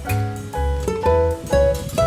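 Background music: plucked acoustic guitar or ukulele with a bass line, a new note about every half second.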